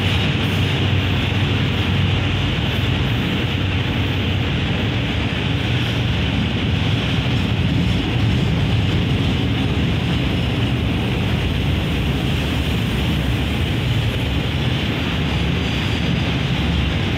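Freight train of container flat wagons passing at speed: steady noise of steel wheels running on the rails, with no let-up.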